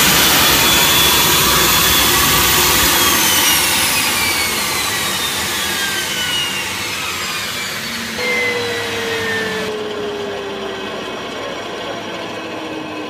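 L1011 Tristar APU, an ST6L-73 twin-shaft gas turbine derived from the PT6, whines steadily and then spools down, several whine tones falling in pitch as it gets quieter. A lower tone comes in about eight seconds in and falls too, and the high hiss drops away suddenly near ten seconds.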